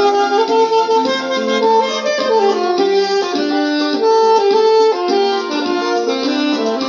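Saxophone playing a melody of held notes over electronic keyboard accompaniment.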